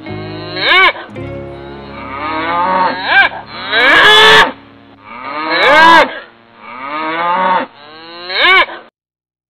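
Dairy cows mooing repeatedly. The calls are a mix of short moos and two long drawn-out ones, each rising and then falling in pitch. The sound cuts off suddenly near the end.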